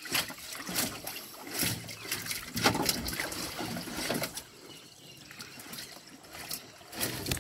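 Water splashing and lapping around a fishing kayak, with irregular sharp splashes and knocks.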